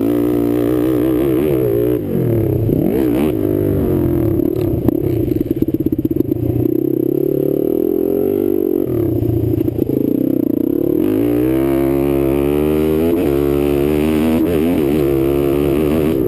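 Sport quad's engine ridden hard, its pitch rising and falling with the throttle, with a long climb in revs about eleven seconds in. A few short knocks and clatters from the machine over the track about five seconds in.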